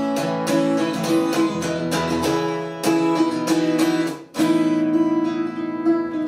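Solo acoustic guitar, chords strummed and picked in a steady rhythm. The playing breaks off for a moment about two-thirds of the way through, then the next phrase comes in.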